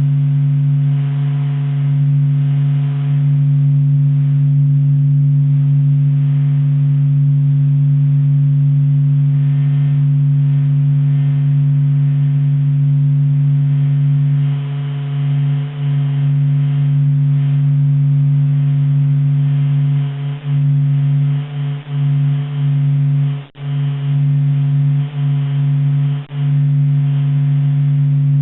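Sonified data of the sun's natural vibrations, heard as a steady, unusual low hum with fainter higher tones above it. It drops out briefly several times in its last third.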